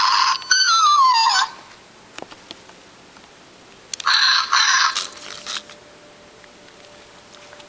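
Zhu Zhu Pets Chunk hamster toy giving out its electronic squeaks and chirps: a loud burst of warbling, falling chirps in the first second and a half, then a second burst about four seconds in.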